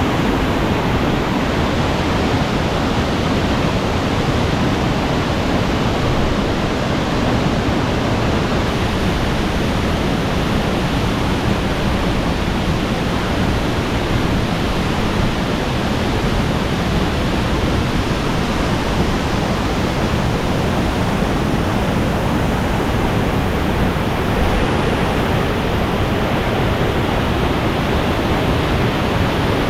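Waterfall plunging into its pool, heard close: a loud, steady rush of falling water.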